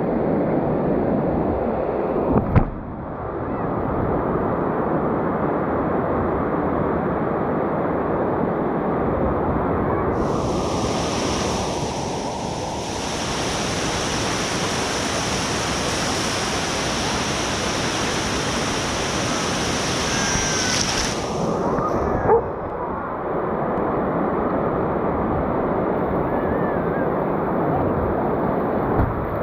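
Steady rush of surf and shallow water washing around a paddleboard, with a brighter, hissier wash for about ten seconds in the middle. A sharp knock sounds once early on and again about two-thirds of the way through.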